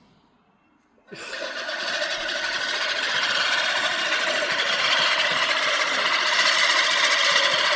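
Lawn mower starting up abruptly about a second in, then running steadily and growing somewhat louder.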